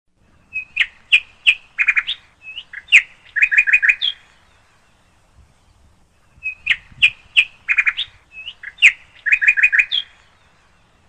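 A songbird singing the same phrase twice, about six seconds apart: a run of sharp chirps followed by quick, rapidly repeated notes, each phrase lasting about three and a half seconds.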